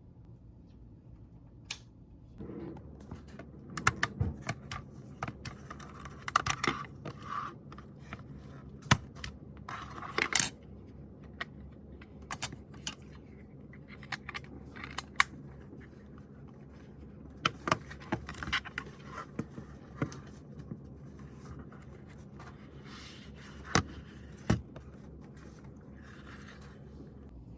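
Irregular clicks, taps and short scrapes of small hard objects being handled and set down on a surface, with a few louder knocks.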